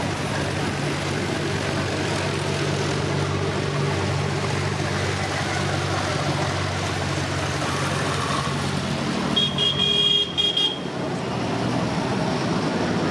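A line of vintage and modern diesel tractors driving past one after another, their engines running steadily. About nine and a half seconds in, a high-pitched horn sounds for about a second and a half in a few short toots, the loudest sound here.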